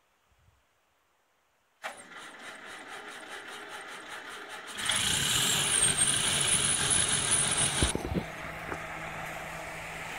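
Ferguson TEA20 grey tractor's four-cylinder petrol engine being started: the starter cranks it over in an even rhythm for about three seconds, then the engine catches and runs. After about eight seconds the sound changes abruptly to the engine running more steadily and quietly as the tractor drives.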